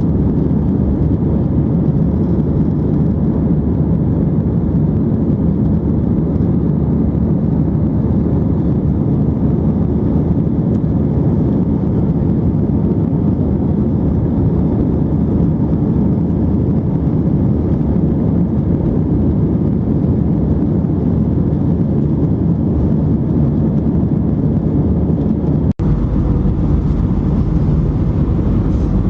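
Airbus A319 jet engines and airflow: a steady, loud, low-pitched noise with no breaks. About 26 seconds in, the sound drops out for an instant and comes back with a little more deep rumble.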